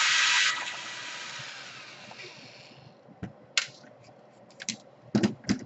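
Cordless drill backing out a laptop case screw: the motor runs loudly, stops about half a second in and winds down over a couple of seconds. Several light clicks and taps of the screw and tools follow near the end.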